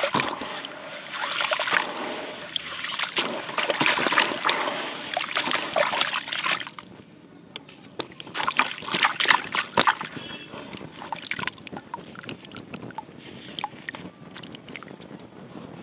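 Wet gritty sand-and-cement chunks crumbled and dipped by hand in a bucket of water. There is sloshing and splashing for about the first six seconds, then quieter dripping and crumbly crackles as a soaked block is lifted and handled, with a brief louder flurry of splashes partway through.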